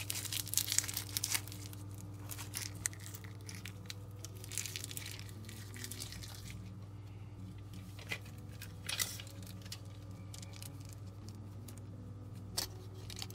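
Small clear plastic bag of screws crinkling and tearing as it is handled and opened, in bursts during the first second or so. After that, a few faint clicks and knocks of small parts being handled over a steady low hum.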